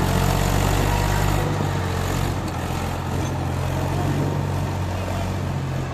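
Mahindra 275 DI tractor's three-cylinder diesel engine running steadily as the tractor hauls on a rope, easing slightly in level about a second and a half in.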